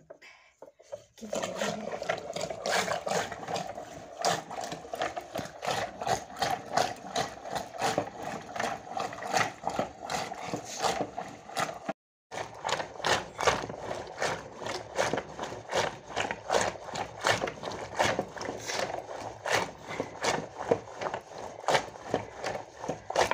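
Traditional madani, a wooden churning stick spun back and forth by a rope in a pot of curd, knocking and clattering in a quick, even rhythm as the curd is churned for butter to make ghee. The churning breaks off briefly about halfway, then picks up again.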